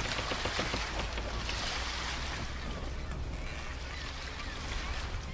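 Steady rushing noise of wind and water, with a low rumble underneath.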